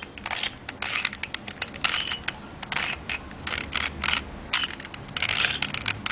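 3x3x3 Rubik's cube being turned quickly by hand: its plastic layers click and rattle in a rapid run of turns, a few a second.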